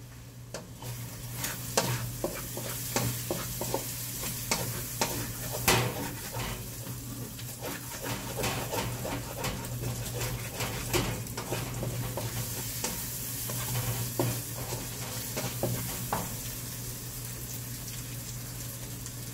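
Tuna sisig sizzling in a frying pan while a spatula stirs it, with frequent clicks and scrapes of the utensil against the pan. The sizzle starts about a second in, over a steady low hum.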